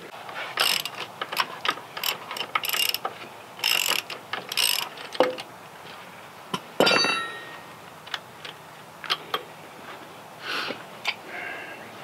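Metal clicking and clanking from the sawmill carriage's headblock setworks and shaft coupler as they are worked by hand to shift the headblock a sixteenth of an inch. A quick run of clicks and knocks comes through the first five seconds, then a loud ringing metal clank about seven seconds in and a smaller ringing clank near the end.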